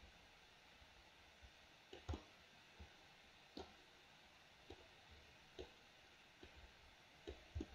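Faint, irregular clicks of a computer mouse's buttons, roughly one a second, over near silence.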